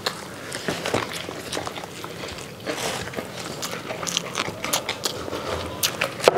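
Close-miked eating sounds: several people chewing and smacking their lips over biryani rice and fried whole chicken (chargha) eaten by hand, with many irregular small wet clicks and crackles.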